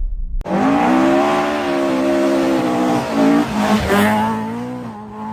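Rally car engine at high revs, starting abruptly about half a second in. It holds steady, then dips and breaks briefly around three to four seconds in, as at a lift or gear change, picks up again and fades.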